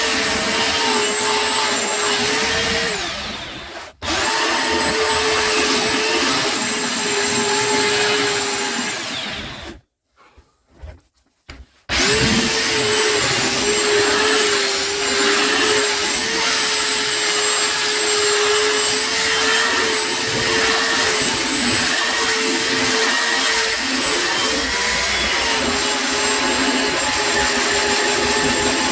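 Electric power sander running on wood with a steady high motor whine and hiss. It fades and cuts out briefly about four seconds in, stops for about two seconds a third of the way through, then runs steadily again.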